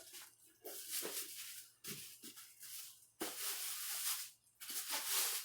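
Packaging wrap rustling and crinkling in several irregular bursts as a new LED taillight is unwrapped by hand.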